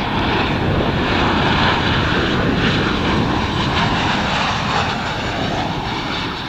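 Boeing 737-800's CFM56-7B turbofan engines on final approach, passing low with landing gear down: a loud, steady jet rush that peaks a second or two in and slowly fades.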